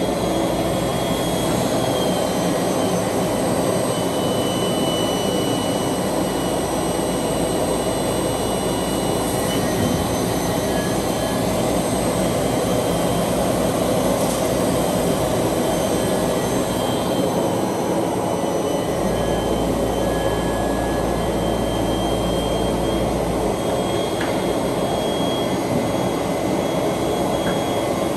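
Brush sanding machine running: a loud, steady machine noise with thin whining tones above it. A deeper hum grows stronger for about four seconds about two-thirds of the way through.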